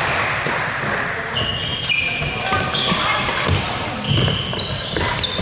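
Court shoes squeaking on a wooden sports-hall floor, many short high squeaks as badminton players start and stop, with the sharp taps of rackets striking shuttlecocks.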